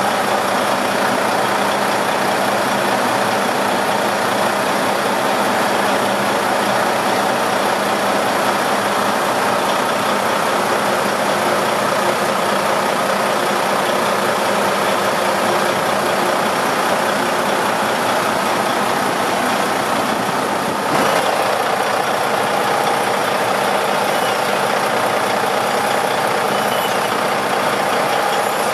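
Seakeeper 16 gyro stabiliser running, a steady mechanical hum with several constant tones over machinery noise. A short bump comes about three quarters of the way in.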